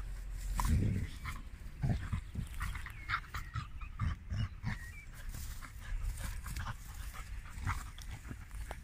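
A Vizsla and a Dobermann play-fighting, making rough play noises: short, irregular low growls and grunts mixed with brief high squeaks.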